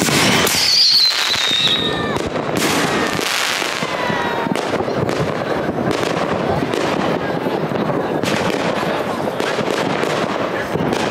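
Aerial fireworks going off overhead: a steady run of bangs and crackling, with a high whistle falling in pitch near the start.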